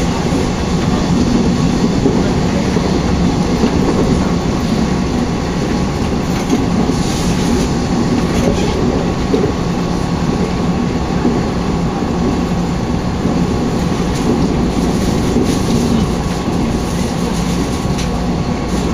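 Taiwan Railways passenger train running along the line, heard from inside the carriage: a steady rumble of wheels on rail with a few faint clicks from the track.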